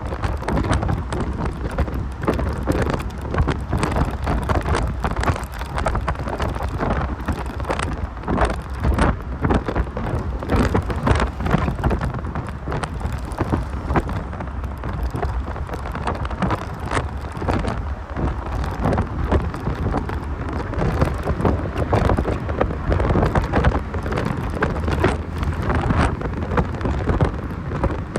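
Driving noise inside a 1990 Mazda Miata: a low rumble of road noise under constant crackling wind buffeting on the microphone.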